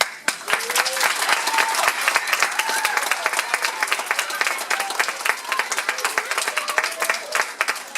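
Audience applauding loudly, starting suddenly as the music ends, with voices calling out over the clapping.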